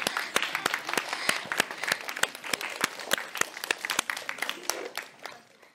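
A small group applauding: quick, irregular hand claps that thin out and fade away near the end.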